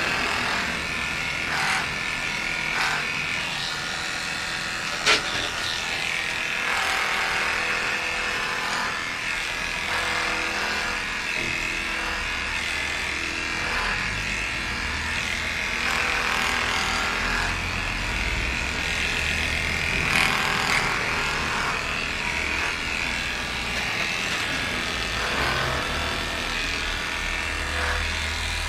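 Electric dog grooming clippers running steadily as they shave a dog's coat, with a single sharp click about five seconds in.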